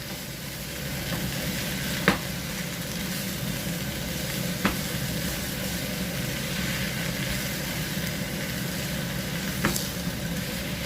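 Chicken wings, mushrooms and celery sizzling steadily in a pan while being stirred, with three sharp clicks of the utensil against the pan.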